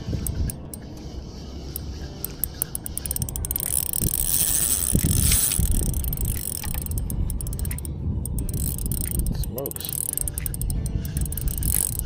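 Spinning reel being cranked to retrieve line, its gears ticking rapidly. A louder rushing noise swells about four seconds in.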